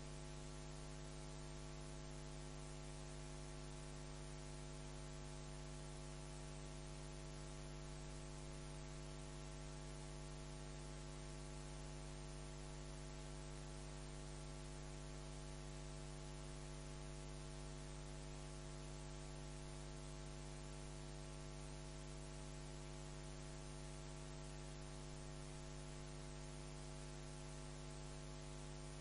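Steady electrical mains hum with a layer of hiss, unchanging throughout: the background of the recording or sound system while no one speaks.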